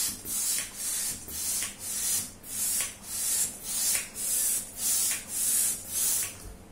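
Hand balloon pump blowing up a 12-inch round balloon: a rhythmic hiss of air on each stroke, about two strokes a second, stopping just before the end.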